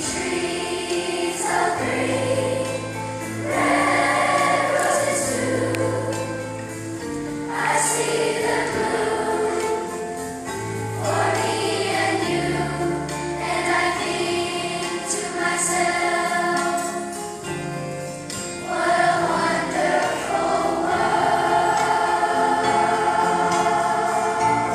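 Children's choir of fifth graders singing a song together over instrumental accompaniment with sustained bass notes.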